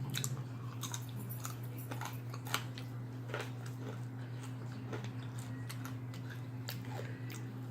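Close-up chewing of bacon: scattered short clicks and crunches from the mouth, over a steady low hum.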